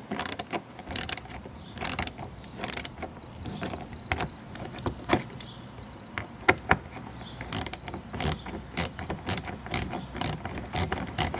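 Small hand ratchet clicking in short, irregular runs as it backs out a T20 Torx screw from the plastic wheel-well liner.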